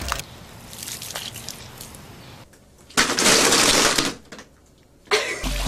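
Gunge splattering down onto a person's head: a loud, rushing splash lasting about a second, a little past the middle.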